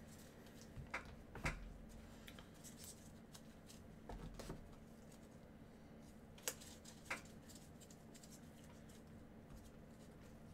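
Faint handling of trading cards and their packaging: a few scattered short clicks and soft rustles over a low steady hum.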